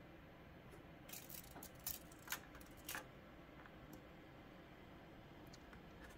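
Near silence, broken by a few faint clicks and light taps in the first half as a tape measure is handled against a plastic figure.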